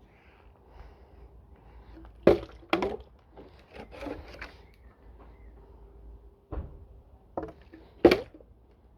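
A plastic bottle being flipped and knocking down on a hard surface: two sharp knocks about two seconds in, then three more spaced knocks near the end.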